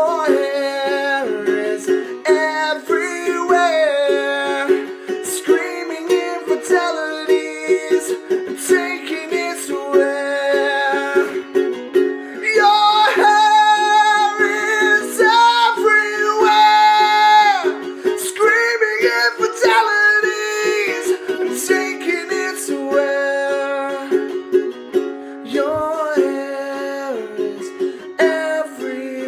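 A man singing with his own strummed ukulele accompaniment. The singing gets louder and higher in the middle, with long held notes.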